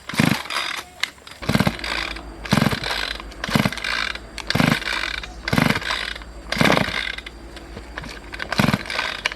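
Rhythmic mechanical strokes, about one a second, each a short clicking rasp, as from a hand tool being worked on a bicycle part.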